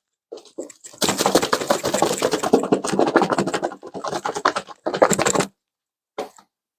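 Seasoned raw chicken wings being shaken in a covered container: a dense, rapid rattling and slapping. A couple of short shakes come first, then about four seconds of steady shaking, and one brief shake near the end.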